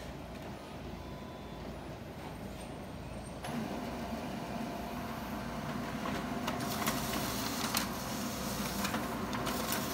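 Xerox WorkCentre 3655 black-and-white laser copier making a back-to-back copy: a steady low machine hum, then about three and a half seconds in the print engine starts with a louder whir, and several sharp clicks come in the second half as the sheet feeds through and out.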